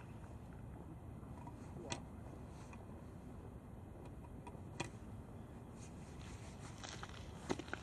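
Low steady rumble of wind on an outdoor microphone, with three short sharp clicks about three seconds apart, the last the loudest.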